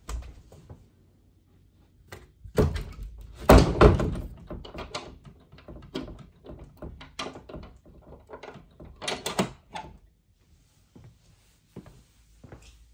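A run of knocks and thumps from things being handled, the heaviest about three to four seconds in, with another cluster around nine seconds.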